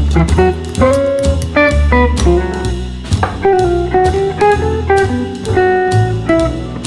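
Background music: a plucked guitar melody over bass and drums with a steady beat, in a bluesy, jazzy style.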